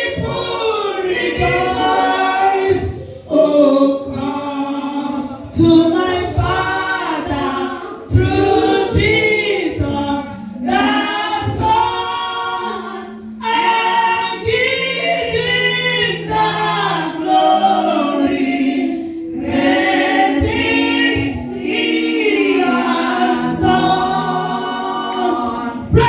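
A church choir or congregation singing a gospel song, with women's voices prominent.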